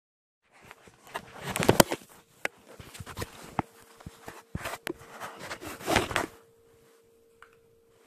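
Handling noise from the phone camera being picked up and moved about: rubbing, scraping and sharp knocks on the body of the phone. It is loudest near the start and again about six seconds in, then stops, leaving a faint steady hum.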